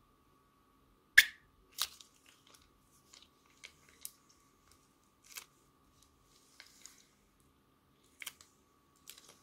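Soft plastic piping bag being squeezed, pushing thick slime out through its tip into a bowl of slime: a scattering of short crinkles and sticky wet clicks, the loudest about a second in.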